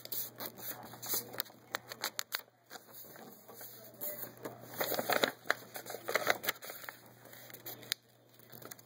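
A sheet of paper being folded and creased by hand: irregular rustles and crackles as it is handled and pressed flat, busiest past the middle.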